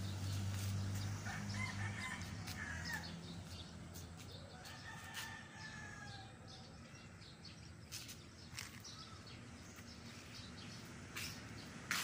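A rooster crowing faintly a few times, with scattered light clicks and knocks, over a low steady hum that fades out after about two seconds.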